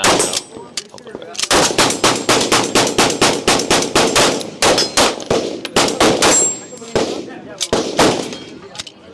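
Rapid pistol gunfire from a handgun in a stocked chassis carbine. A single shot comes at the start, then a fast string of shots at about three a second, then a few more spaced shots near the end, each with a sharp crack ringing out across the open range.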